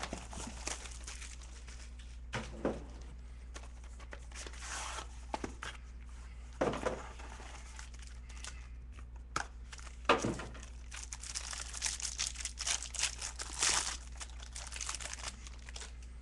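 A Panini Gold Standard trading card box being torn open and the clear plastic wrap on a card pack crinkled and pulled apart by hand: irregular rustling and crackling, busiest in the second half.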